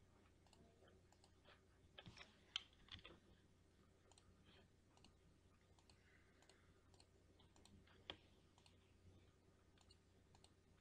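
Near silence, broken by faint computer mouse clicks as photos are placed into frames: a few close together about two to three seconds in, and one more about eight seconds in.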